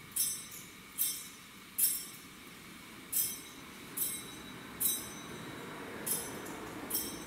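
Metal thurible clinking against its chains as it is swung to incense the Gospel book before the reading. The clinks come about once a second in groups of three, each with a short bright ring.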